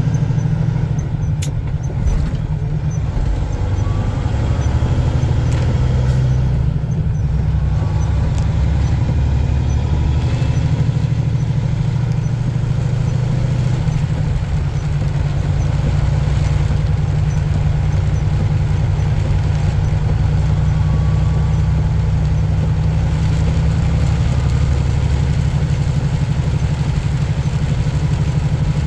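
Truck engine and road noise while driving, a steady low drone.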